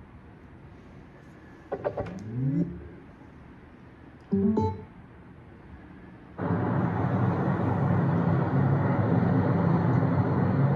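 Two brief sounds that rise in pitch, then music that starts suddenly about six seconds in and plays on steadily.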